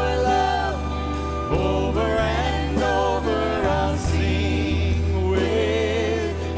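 Contemporary worship song played by a live band: women singing the melody into microphones over drums and a steady low bass.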